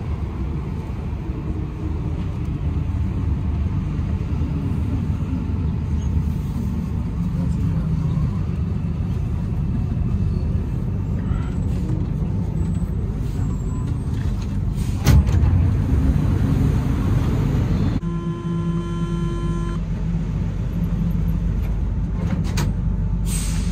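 Interior of an Alstom NS-93 rubber-tyred metro car at a station: a steady low rumble with passengers murmuring. About 18 seconds in, an electronic chime of several steady pitches sounds for about two seconds, and a short hiss follows near the end.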